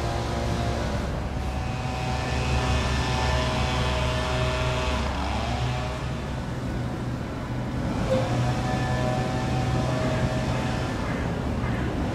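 Tatra tram moving slowly over a temporary climbing switch: a steady low hum with whining motor and gear tones above it, the whine bending in pitch about halfway through.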